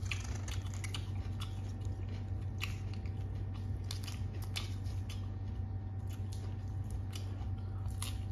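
Eating sounds: scattered crisp snaps and crackles of fresh herbs and vegetables being torn by hand and chewed, over a steady low hum.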